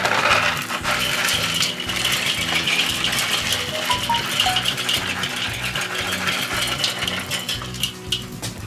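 Mesquite smoke pellets pouring from a cardboard box onto hot charcoal in a kettle grill: a continuous stream of small clicks and ticks as the pellets land on the coals and grate, easing off near the end.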